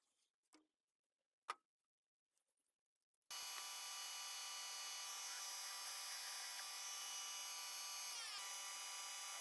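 A few light clicks, one sharp, then a metal lathe running with a steady high whine that begins abruptly about a third of the way in. The whine's pitch briefly shifts a little after 8 seconds.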